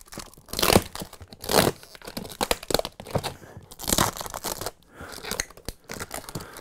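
Hands rummaging in and handling a packed plastic storage tote: a run of rustling, crinkling and light knocking of plastic and packed items, with a few louder scraping bursts.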